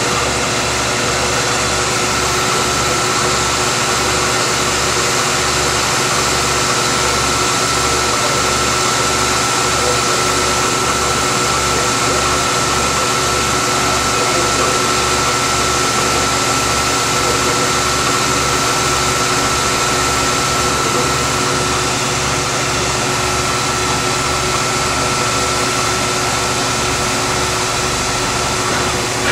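Tsugami B018B-III Swiss-type CNC lathe running under power: a steady machine hum with a high whine, over a low pulse about one and a half times a second. The whine cuts off shortly before the end.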